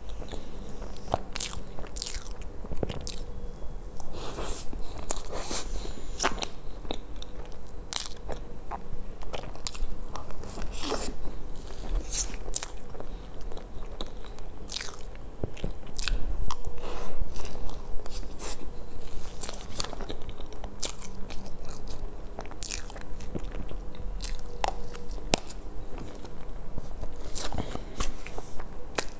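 Close-miked eating sounds: chewing and sharp mouth clicks while eating soft cream cake, with a small spoon clicking and scraping in a plastic dessert cup, irregular and continuous.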